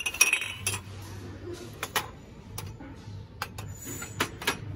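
Glass votive candle holders clinking against each other and a metal store shelf as they are handled: a string of sharp, irregular clinks, some ringing briefly.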